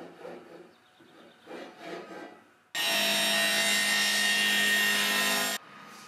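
Sliding-table panel saw cutting through a wooden board: a loud, steady whine over a rush of noise that starts suddenly about three seconds in and cuts off abruptly after about three seconds. It comes after a few softer rubbing sounds of wood being slid along the saw table.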